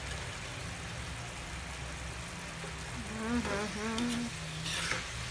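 A steady low hum, with a voice heard briefly about three seconds in. Near the end comes a short scrape of a metal spatula stirring the stew in a nonstick frying pan.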